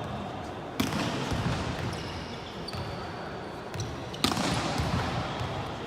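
Volleyball being struck hard twice during play, about a second in and again near four seconds, with short high sneaker squeaks on the court floor in between.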